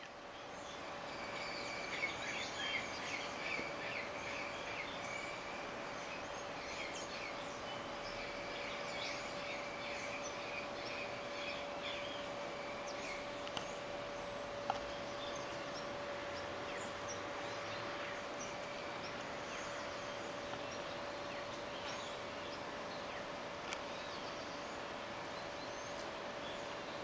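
Outdoor ambience: birds chirping, busiest in the first half, over a steady hum and background hiss.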